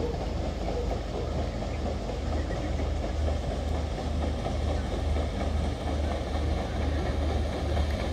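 Paddle steamer passing at close range: a steady low engine rumble with churning from its paddle wheels.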